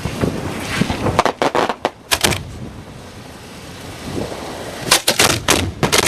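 Fireworks going off at close range: a quick run of sharp bangs, then a pause, then a second run of bangs near the end.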